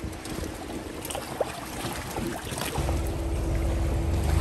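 An engine running with a steady low rumble that grows louder about three seconds in, with wind noise on the microphone.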